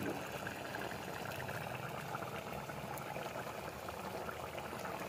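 Chicken curry simmering in a kadai over a wood fire: a steady bubbling hiss with scattered small pops.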